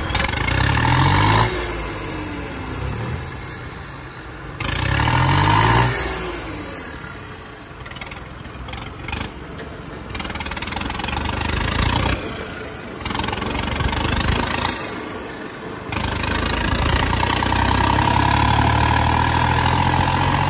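Tractor diesel engine revving hard in surges: a short rev right at the start, another about five seconds in, and a long sustained one from about sixteen seconds, running lower in between.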